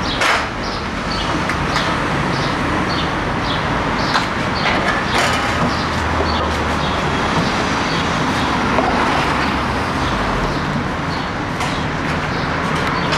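Street ambience: a steady wash of traffic noise with small birds chirping over it again and again.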